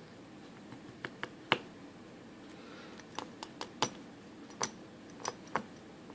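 Sharp little clicks and taps of small metal lock parts and tools being handled while a Sargent Signature LFIC core is taken apart. There are about a dozen, irregularly spaced, the loudest about a second and a half in.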